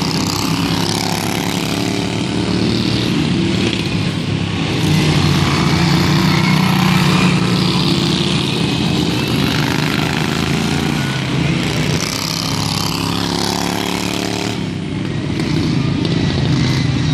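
Several pro-stock racing lawn tractors running hard, one of them on a 16 hp Briggs & Stratton Vanguard engine, their engines droning together. The sound swells louder for a few seconds in the middle and dips briefly near the end.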